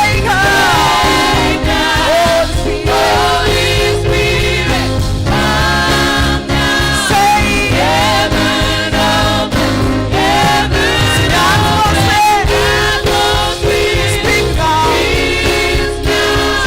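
Gospel choir singing a worship song over a steady beat of instrumental backing.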